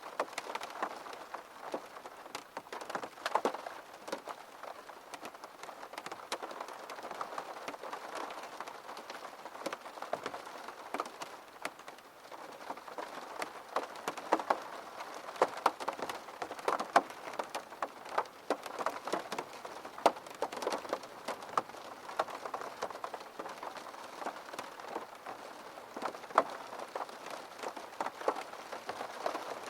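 Steady rain with many individual drops pattering and ticking irregularly against a hard surface.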